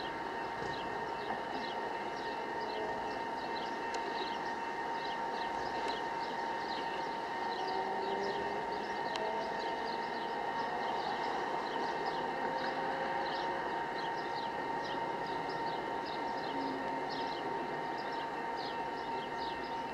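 A distant train rumbling faintly, under a steady high tone and quick repeated chirps about three a second.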